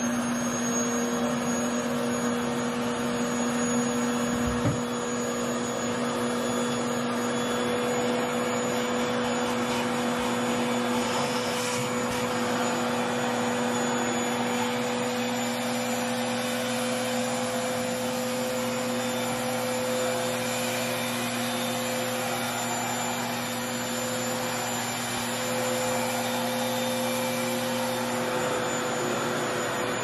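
Revair reverse-air hair dryer running: a steady, very loud rush of suction air with a constant motor hum and a high whine, its wand drawing the hair in to dry it.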